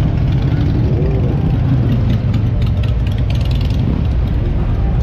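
Motorcycle engines running steadily, a loud, low-pitched sound with no break.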